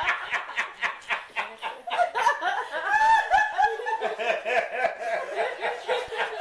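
Laughter in quick repeated bursts of 'ha-ha' with a bouncing pitch, in response to the punchline of a joke.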